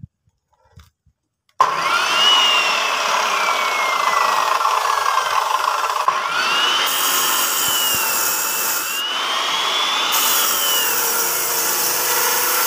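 Benchtop abrasive cut-off saw starting about a second and a half in and cutting through a bundled coil of steel tie wire. The motor's whine rises quickly as it spins up, then falls and rises again several times as the disc grinds into the wire, over a steady grinding hiss.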